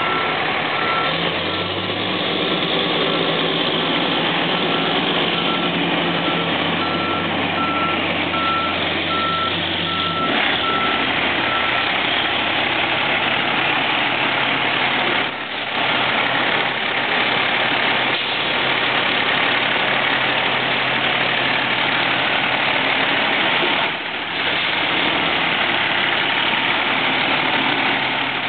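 Fire tanker truck backing up, its reversing alarm beeping steadily over the running engine; the beeping stops about twelve seconds in and the engine keeps running.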